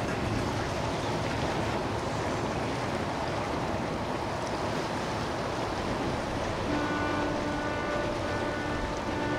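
Steady rush of boat engines and water, with wind on the microphone. About seven seconds in, music with held notes comes in over it.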